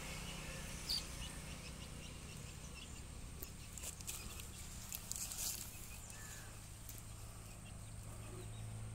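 Lister CS-type 6 hp single-cylinder, water-cooled, slow-speed diesel engine running steadily, with an even low beat.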